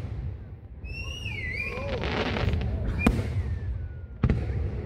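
Aerial fireworks shells bursting, with two sharp bangs about a second apart in the second half over a steady low rumble.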